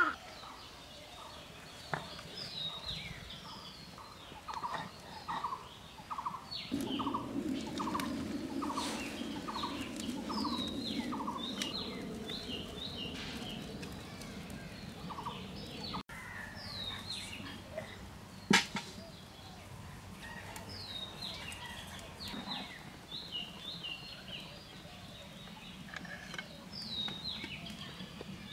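Birds calling: an evenly repeated call, about two a second, runs for several seconds, over many small birds chirping throughout.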